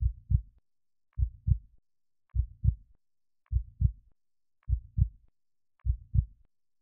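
Heartbeat sound effect: six slow, even lub-dub beats, each a pair of low thumps, at about fifty beats a minute.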